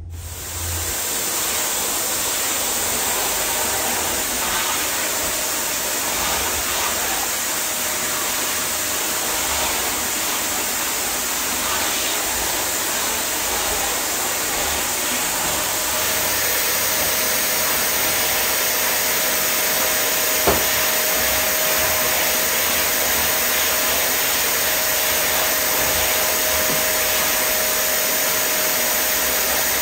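Vacuum cleaner running steadily with a faint whine in its whir, a little louder after about sixteen seconds; a single knock about twenty seconds in.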